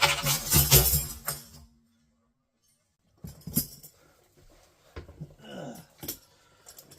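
Steel handcuffs rattling and clicking as they are worked open during a speed escape. There is a dense burst of metallic jingling in the first second and a half, then a pause, then scattered clicks and clinks.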